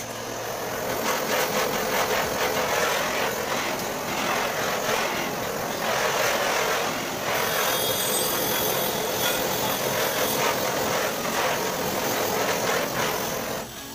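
Handheld butane torch flame burning with a steady hiss while heating PVC conduit, starting with a click and shut off suddenly just before the end.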